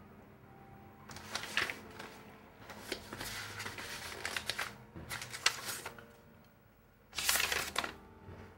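Sheets of paper rustling as manuscript pages are handled and turned, in several bursts. A short, sharp rustle comes near the end.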